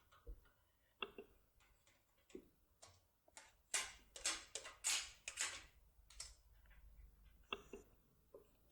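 Faint handling noise of a foil-wrapped lock-pick tool: scattered small clicks and short scraping rubs, busiest in the middle, as the self-adhesive foil strip is smoothed down along the tool's edge.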